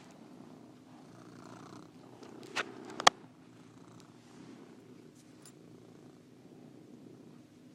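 Domestic cat purring steadily. Two sharp clicks come about two and a half and three seconds in, the second the loudest.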